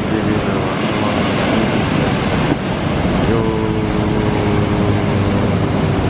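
Sea surf breaking on a rocky shore: a steady rush of waves and spray. A long held note sounds over it from about halfway through.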